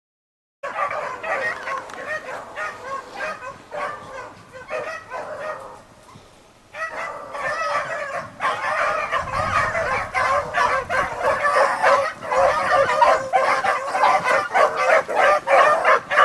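A pack of beagles baying on a rabbit's track, many voices overlapping. The chorus thins out briefly about six seconds in, then comes back fuller and louder.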